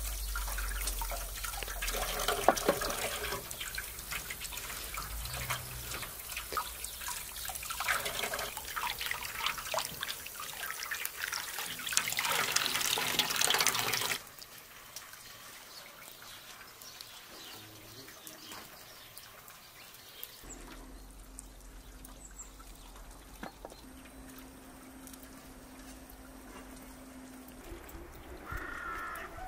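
Water running from an outdoor tap into a large metal basin, with splashing and clatter as radishes, lemons and greens are washed by hand; it grows louder before cutting off suddenly about halfway. The rest is a quiet background with a faint steady hum.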